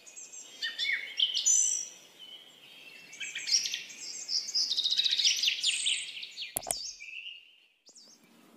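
Small songbirds chirping and twittering in quick runs of high calls, with a sharp click a little after two-thirds of the way through.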